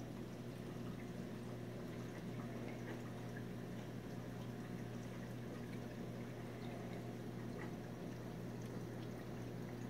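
Reef aquarium's water circulation: a steady low hum with water trickling and small bubbly pops over it.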